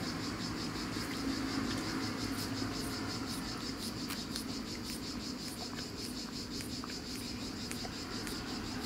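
Insects chirring steadily in a high, even band that pulses about three times a second.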